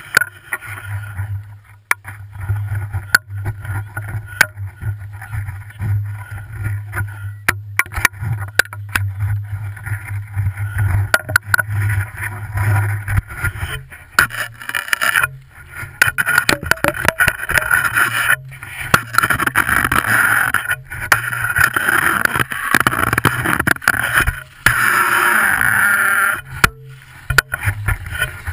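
Skis scraping and hissing over packed snow, with a low wind rumble on the action camera's microphone; the scraping grows louder and more continuous from about halfway through as the skier gets moving.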